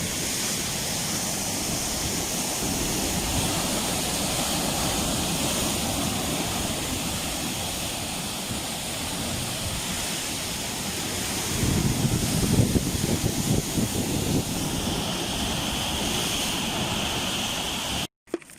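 Large ocean waves breaking and surf rushing steadily, with a louder surge about twelve seconds in. The sound cuts off abruptly near the end.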